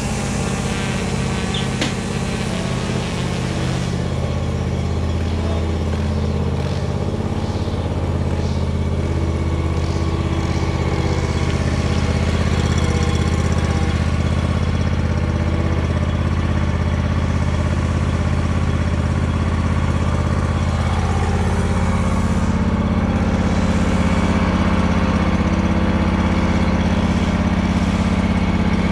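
Exmark S-Series walk-behind mower's engine running steadily at a constant speed, a little louder from about twelve seconds in.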